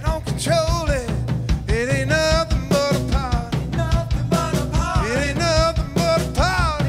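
A rock band playing live: drum kit, electric guitars and bass under a melody line that bends and slides in pitch, over a steady beat.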